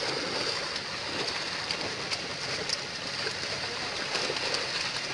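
Many fish thrashing and splashing in shallow water inside a net being drawn in to the bank: a steady patter of small splashes.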